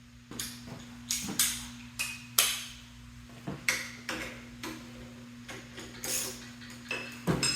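Irregular light metal clicks and clinks of hand tools and small parts being handled on a motorcycle's handlebar clamp, over a steady low hum.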